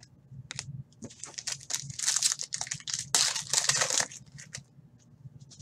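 Foil trading-card pack wrapper being crinkled and crumpled in the hands, a dense crackling that starts about a second in and stops about four and a half seconds in.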